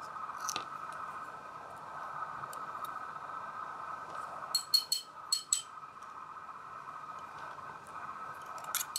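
Sharp little metal clicks from a GeGe AP 3000 Euro lock cylinder being taken apart by hand, as its pins and springs are let out one chamber at a time. There is one click just after the start, a quick cluster of about five about halfway through, and a few more at the very end, over a faint steady high hum.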